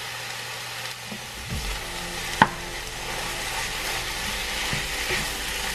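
Ground turkey sizzling in a nonstick frying pan as it is seasoned and stirred with a wooden spoon: a steady frying hiss, with one sharp tap about two and a half seconds in and a few softer knocks later.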